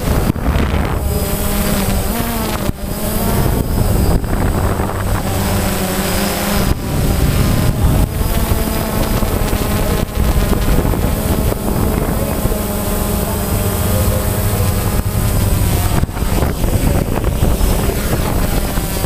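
DJI Phantom quadcopter's motors and propellers buzzing steadily, heard up close from the camera it carries. The pitch wavers up and down as the drone changes speed and direction.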